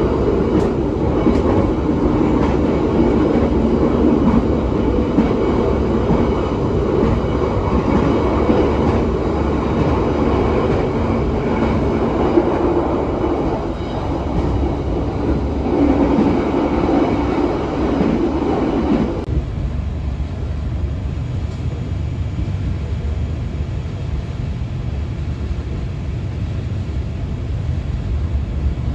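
Running noise of an Indonesian executive-class passenger train coach at close to 100 km/h, heard from inside: a steady rumble of wheels on the track. About two-thirds of the way through it drops suddenly to a quieter, deeper rumble.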